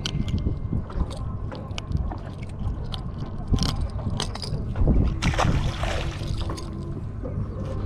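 Unhooking a fish by hand on a small boat: light clicks and rattles of metal pliers and a lure's treble hooks over a steady low rumble of wind and water against the hull. About five seconds in comes a louder rush, like a splash, as the fish goes back into the water.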